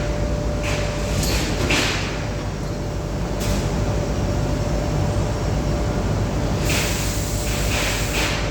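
Steady machinery hum with a constant thin whine, broken by short bursts of hissing noise about a second in and again near the end.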